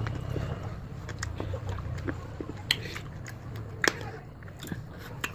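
A person chewing and biting fruit: scattered short, sharp clicks and mouth sounds over a low steady hum.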